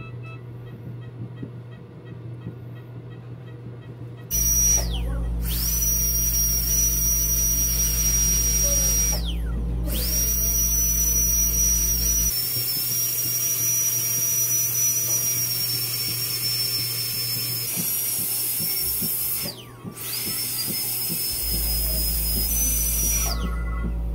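High-speed dental drill handpiece whining at a steady high pitch over a hiss, cutting into a dog's fractured tooth during its extraction. It starts about four seconds in and stops and restarts three times, briefly each time.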